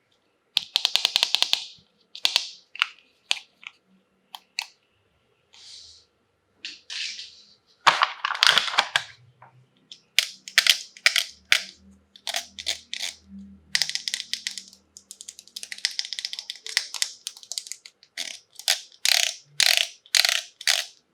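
Crinkling and rustling of plastic packaging handled during an unboxing, in irregular bursts of crackle with some longer rustling stretches.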